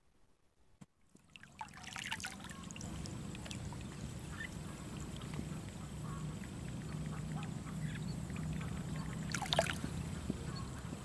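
Ducks quacking, with the strongest calls about two seconds in and again near the end, over a steady low hum. The sound comes in about a second and a half in, after near silence.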